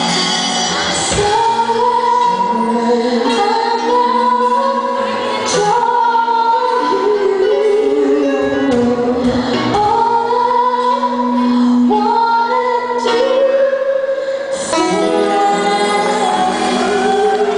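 A woman singing live into a microphone with musical accompaniment, holding long, sliding notes.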